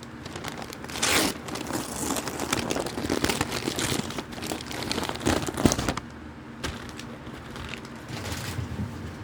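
Packaging being handled and unwrapped by hand, crinkling and rustling. It is busiest from about a second in, then dies down to quieter handling about two-thirds of the way through.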